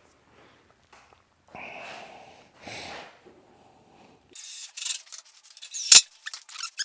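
Soft rubbing twice, then louder scraping and rattling from about four seconds in, with a sharp knock near the end: wood parts of a bookcase being handled and worked.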